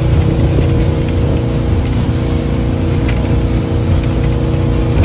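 Speedboat engine running steadily at speed, a constant drone under a low rush of wind and water.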